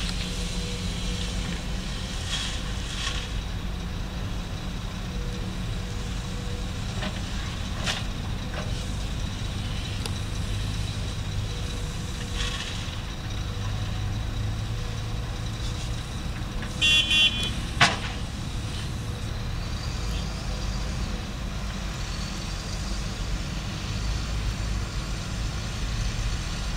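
Diesel engines of a crawler excavator and Shacman dump trucks running steadily, with crushed stone now and then clattering into a steel truck bed. About seventeen seconds in, a vehicle horn gives a few short toots, followed by a single sharp knock.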